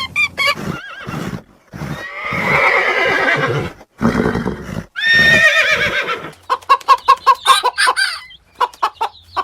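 Horse whinnying: two long, wavering neighs, followed by a run of quick, short repeated calls.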